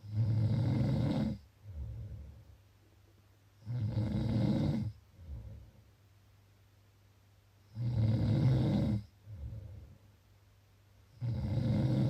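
A person snoring: four loud, rasping snores about every four seconds, each followed by a shorter, softer breath.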